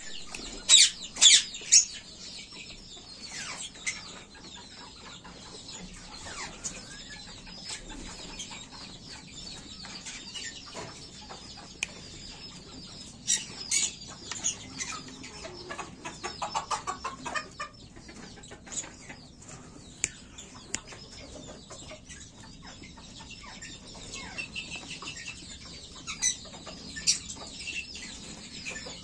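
Japanese bantam chickens clucking and calling in their coop, with three loud short calls in the first two seconds and scattered further calls later on, over small scratching clicks.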